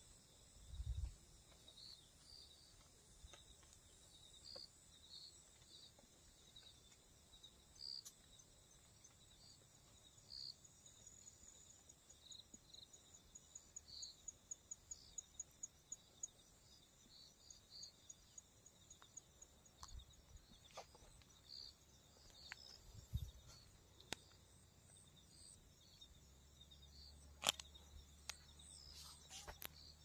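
Faint evening chorus of crickets and other insects, a steady high-pitched chirping with a rapid even trill in the middle. There are a couple of low bumps and a few sharp clicks near the end.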